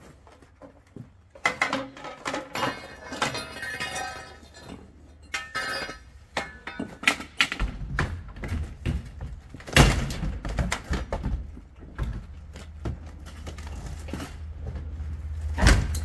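Firefighter's axe and halligan bar striking and prying a sheet-metal sectional garage door: a string of hollow thunks and bangs, the loudest about ten seconds in and again near the end. A rushing hiss comes in the first few seconds, and a low rumble sets in about halfway.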